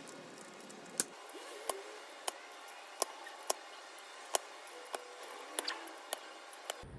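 Keys on a mechanical keyboard with Outemu orange switches being pressed one at a time: about ten sharp, separate clicks at uneven spacing, roughly one or two a second.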